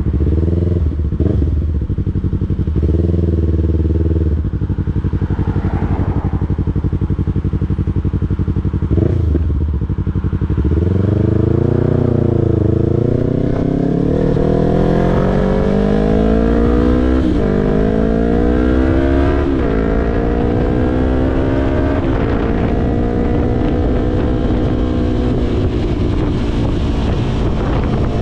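Yamaha YZF-R3's parallel-twin engine running low and steady with a few short throttle blips, then accelerating hard from about ten seconds in: the pitch climbs and falls back at each of several upshifts. It then settles into steady cruising for the last several seconds.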